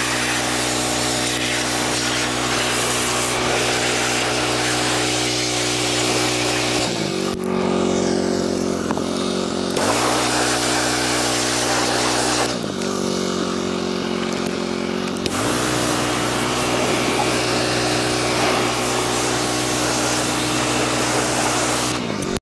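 Pressure washer running, its water spray hissing over a steady machine note. Twice, about seven and thirteen seconds in, the spray stops for a couple of seconds and the machine's note rises, as when the trigger is let go, then the spray resumes.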